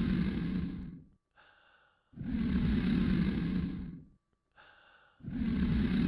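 Weimaraner snoring in its sleep: loud, rasping breaths about every three seconds, each about two seconds long, with a short, quieter, whistling breath between them.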